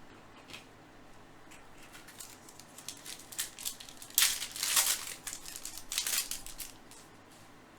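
Foil wrapper of a baseball card pack being torn open and crinkled. A few light clicks come first, then loud crinkling about four seconds in and again about six seconds in.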